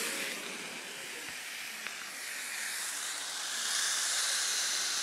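Orange juice hitting a hot skillet of oil, rosemary and garlic, hissing and sizzling as it flashes to steam. The hiss eases after the first second and swells again in the second half as more juice is squeezed in.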